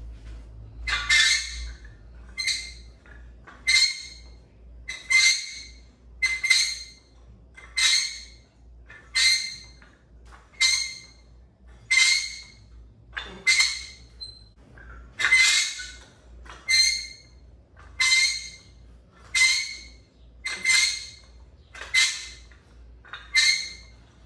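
A man's sharp, forceful breaths during a set of barbell curls, a hissing rush about every second and a half in time with the reps, each starting abruptly and tailing off.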